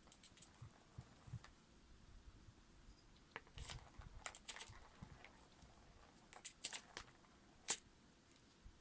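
Singapura kittens moving about and playing: faint, scattered small taps and scratchy clicks of paws and claws, with one sharper tick near the end.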